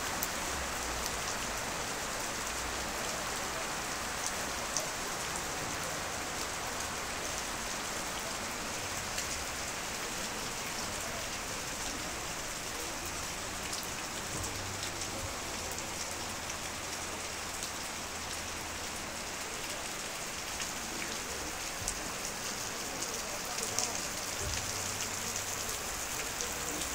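Heavy rain pouring onto a wet paved square, a steady hiss of drops splashing on stone and standing water, with a few sharper single drop hits now and then.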